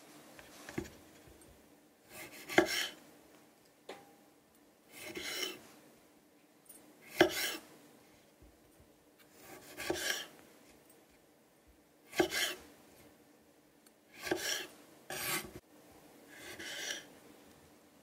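Kitchen knife slicing cherry tomatoes into quarters on a wooden cutting board: a series of about nine short, separate cuts, each a brief rasp through the fruit, several opening or ending with a sharp tap of the blade on the wood.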